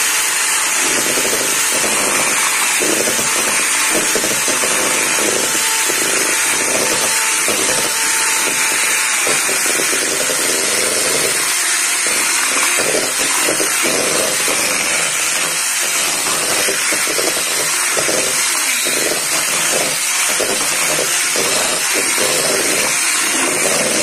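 Electric hand mixer running with its twin beaters in a stainless steel bowl, beating flour into cake batter. It makes a steady whine that drops slightly in pitch about nine seconds in, with frequent small knocks as the beaters hit the metal bowl.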